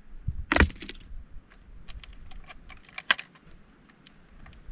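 Irregular light clicks and clatter of small hard objects being handled, with a louder clatter about half a second in and a sharp click near the three-second mark.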